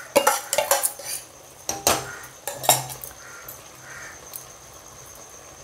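Steel spoon scraping and tapping against a stainless-steel bowl and pan as paste is knocked out: a quick run of metal clinks in the first second, then two louder knocks at about two seconds and just under three seconds.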